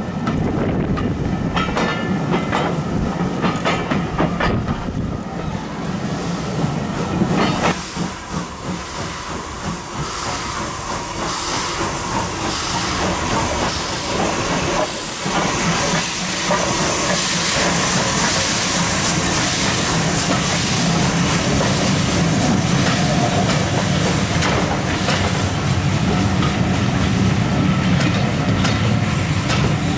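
A steam-hauled train of coaches passing close by: wheels clicking over the rail joints. About eight seconds in the scene changes, and a loud hiss of steam from the ex-Southern Railway USA-class tank locomotive comes up and fades as it passes, followed by the steady rolling of its coaches.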